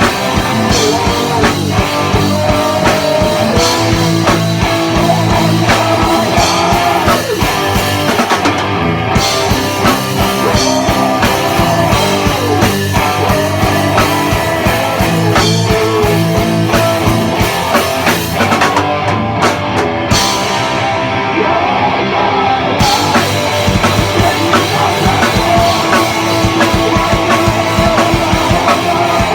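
Rock band playing, with electric guitar and drum kit.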